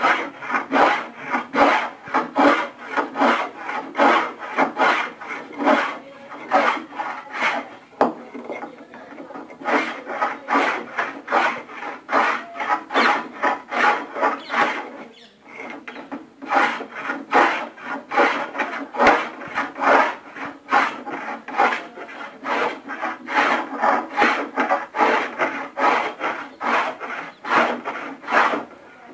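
Hand plane shaving a thin wooden stick, taking quick back-and-forth strokes of about two a second with a couple of short pauses.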